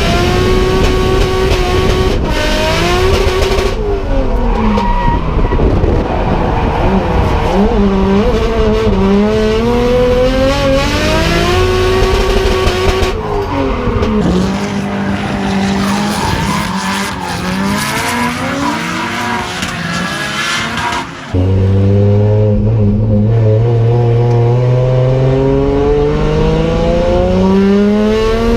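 Turbocharged RB25 straight-six in a Nissan S14 drift car revving hard while drifting, its pitch repeatedly climbing and dropping, with tyres squealing. The sound jumps abruptly several times between separate runs. The engine is running cleanly now that its fuelling problem is sorted.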